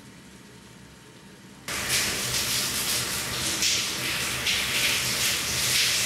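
Faint room tone, then about two seconds in a shower starts running abruptly: water spraying and splashing steadily onto a shower floor.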